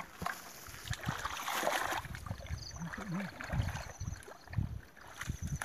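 Hands splashing and sloshing through shallow muddy water while groping for fish, loudest about a second or two in, with a sharp knock at the very start.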